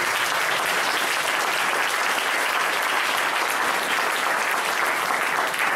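Audience applauding: steady, dense clapping from a seated crowd.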